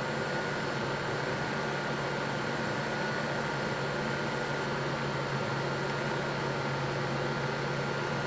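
Electric heat gun running steadily, its fan blowing with a thin, constant motor whine over a low hum, while it preheats a hardened steel hay rake tine before welding.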